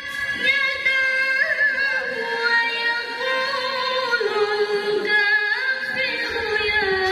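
A woman's voice reciting the Quran in the melodic tilawah style into a microphone, with long held notes and wavering ornamented turns; the melody steps lower about four seconds in.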